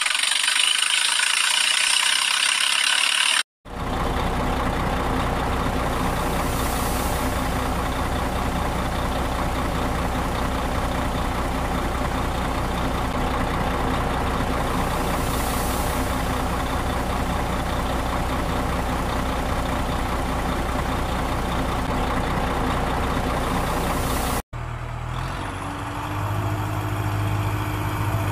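Truck engine idling steadily for about twenty seconds, starting and stopping with abrupt cuts. Before it there are a few seconds of hissy, rattling mechanical noise, and after the cut near the end a different engine sound with a strong low hum.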